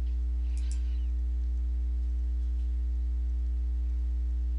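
Steady low electrical hum from the recording's mains power, with a few fainter, higher hum tones above it.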